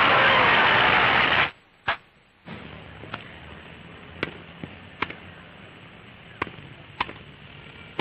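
Crowd applauding loudly, cut off abruptly about a second and a half in. Then, over a steady hiss, a tennis rally: sharp pops of rackets striking the ball, about six of them, roughly one a second.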